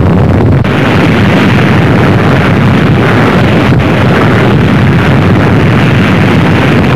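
Loud, unbroken rumble of a nuclear explosion, a dense wall of noise heaviest in the low end that holds steady without letting up.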